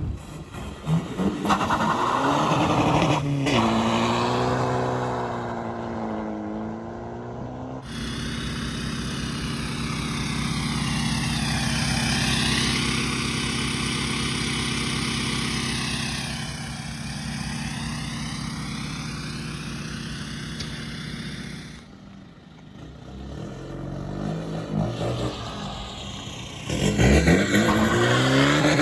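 Volkswagen Golf Mk6 1.6 TDI four-cylinder turbodiesel with a straight-piped exhaust being revved, its pitch rising and falling over and over. The loudest rev comes near the end.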